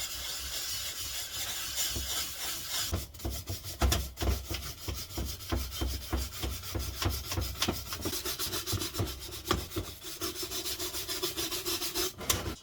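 Wire brush scrubbing the metal case of a Blick time recorder clock in rapid back-and-forth strokes, stripping it down to bare metal; the scrubbing stops abruptly near the end.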